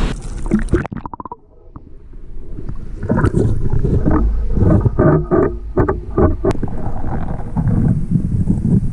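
Tide-pool water heard through a camera plunged underwater: the surf and wind hiss cuts off about a second in, then muffled underwater sloshing and rumbling with many sharp knocks and clicks.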